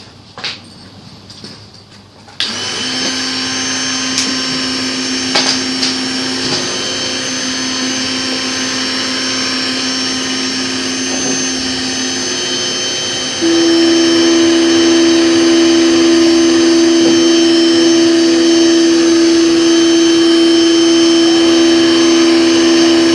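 Proxxon MF-70 mini mill's small spindle motor switching on about two and a half seconds in and running with a steady, loud hum of several held tones. About eleven seconds after that, a second, stronger tone joins and the sound gets louder.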